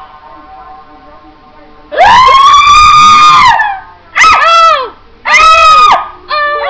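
A young woman shrieking in horror: a long high-pitched scream about two seconds in, then three shorter screams, very loud.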